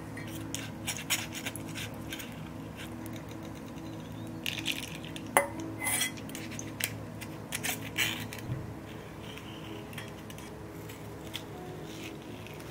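Metal spoon and stainless steel bowl clinking and scraping against a stainless mesh strainer while melon juice and seeds are pressed through it. The clinks come in scattered clusters, busiest about four to six seconds in and again around eight seconds.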